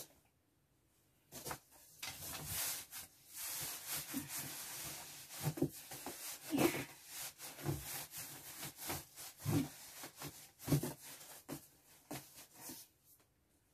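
Clothes and packed items rustling and scraping against the cardboard as they are pushed and pressed down into a large cardboard shipping box, with several dull thumps as they are packed down. The rustling starts about a second in and stops shortly before the end.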